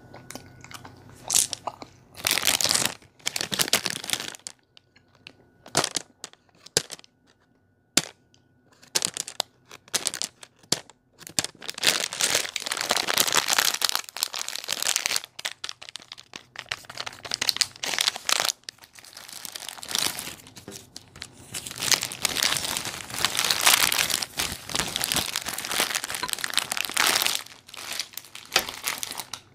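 Plastic candy packet crinkling as it is handled close to the microphone: a few short bursts at first, then long stretches of continuous rustling.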